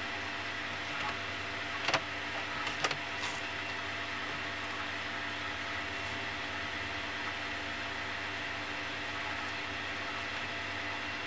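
Steady machine-like hum with two short sharp clicks, about two and three seconds in.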